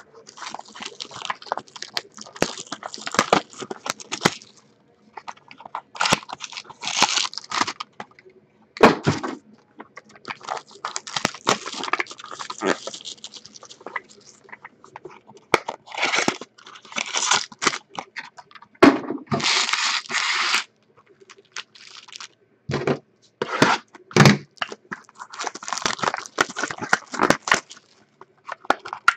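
Trading-card packaging being torn open and handled: wrappers crinkling and tearing in repeated spells of a second or two, with sharp crackles and clicks between them.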